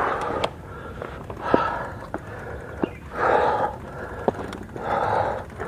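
A cyclist breathing hard with loud, gasping breaths about every one and a half to two seconds, labouring while pedalling a pedal-assist electric bike up a very steep climb. Short sharp clicks come in between the breaths.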